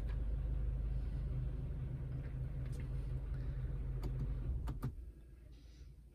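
BMW F30 engine idling, heard from inside the cabin, with a few sharp clicks from interior controls. The idle hum cuts off abruptly about five seconds in, as the engine is switched off.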